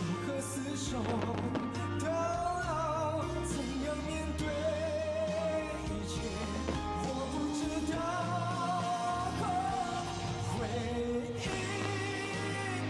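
Pop song with a sung vocal line over a steady bass and beat.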